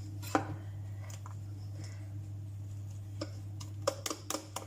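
A kitchen utensil tapping and scraping against a mixing bowl as cake batter is mixed and the flour is scraped down from the sides. Scattered short clicks come over a steady low hum, busiest near the end.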